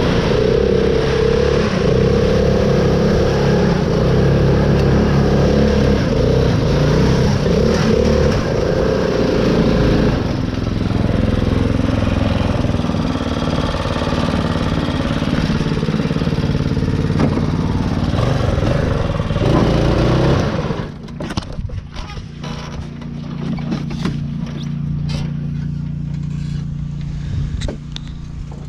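Riding mud mower's engine running hard under load, then dropping sharply to a quieter steady idle about twenty seconds in, with scattered clicks and knocks after it.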